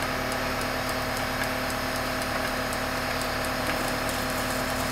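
Diesel engine of a large mobile crane running at a steady speed, a constant hum with a held tone, while the crane takes the weight of a steam locomotive.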